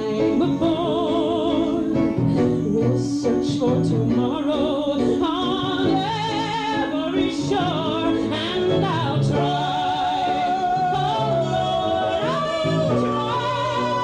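A woman singing long held notes with a wide vibrato over instrumental accompaniment, in a live soundboard recording.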